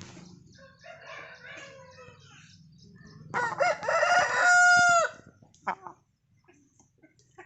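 An aseel rooster crowing once, a little under halfway through: a crow of about two seconds that starts in short rising notes and ends on a long held note that cuts off. Softer clucking comes before it, and a single sharp click follows.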